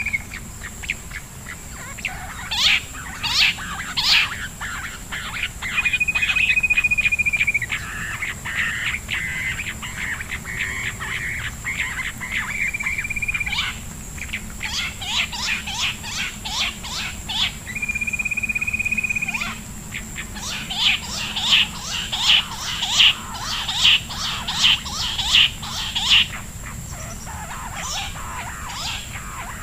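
Bush quail calling: runs of short, sharp notes, quickening into fast series at times. Three held, level whistles of a second or two come in between.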